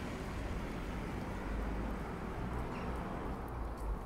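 Steady outdoor street ambience with a heavy, uneven low rumble and no distinct events.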